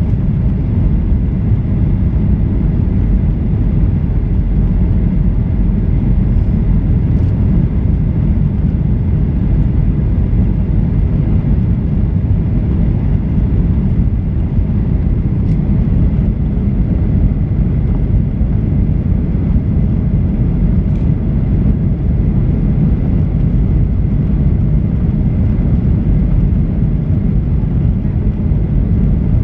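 Steady, loud rumble of a Boeing 737-800 in flight as heard inside the cabin: its CFM56-7B jet engines and the rush of air along the fuselage, deep and unchanging, with a faint steady whine above it.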